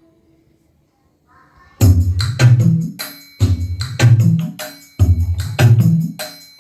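Tamil film song playing between sung lines: a held vocal note fades out, there is a gap of about a second and a half, then hand percussion and a bass line come in with a steady repeating beat.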